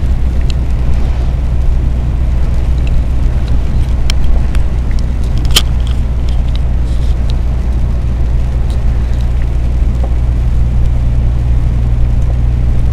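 Inside the cab of a Scania truck cruising on the highway: a steady low drone from the diesel engine, tyre hiss on a wet road, and a few sharp clicks.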